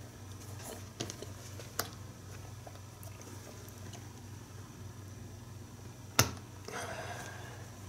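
Hands handling leather coat pieces held with small plastic sewing clips: small clicks and rustling, with one sharp click about six seconds in, over a steady low hum.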